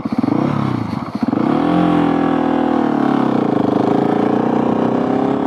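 Husqvarna 701 Supermoto's single-cylinder four-stroke engine through a LeoVince Nero exhaust, chugging at low revs and then pulling away in third gear. The revs climb from about a second and a half in, ease off around three seconds in, then hold steady. It is held in third because the crash-bent shift lever can't change gear.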